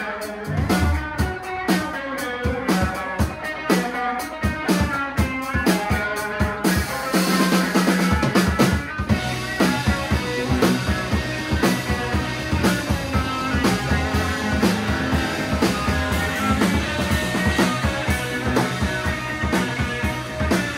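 A live rock band plays a passage on electric guitars, bass and drum kit. About seven seconds in, the cymbals come in and the band plays fuller and louder.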